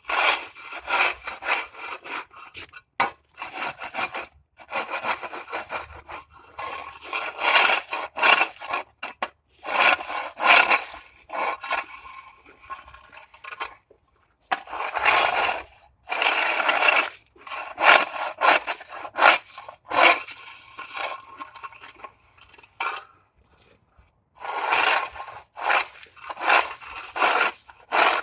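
Ice chopper scraping and chipping at ice on pavement in repeated, irregular strokes with short pauses between them.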